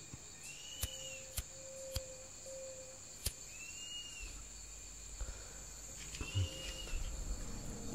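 Night insect ambience: a steady high cricket trill, with short rising-and-falling calls every couple of seconds and a few sharp clicks in the first few seconds.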